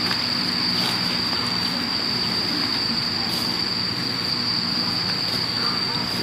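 Insects shrilling in one steady high tone, over a low hum, with a few faint clicks.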